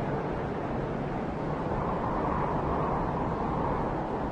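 Steady rushing noise with no distinct events in it.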